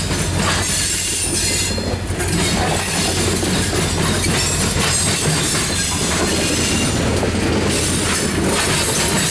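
An EMD SD40-2 diesel locomotive's engine running as it passes, followed by loaded covered hopper cars rolling by, their wheels pounding over a railroad diamond crossing.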